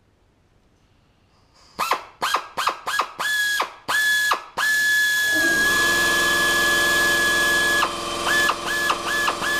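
Hand-held electric drill pulsed in a string of short trigger bursts, each a quick whine rising in pitch, then run steadily for about three seconds, then pulsed rapidly again, with its bit in a hole in the aluminium elevator part.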